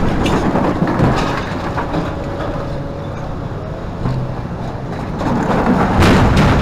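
Hidromek 390 excavator's six-cylinder Isuzu diesel running under hydraulic load, with rattling knocks from soil and rock being handled. It gets louder about six seconds in.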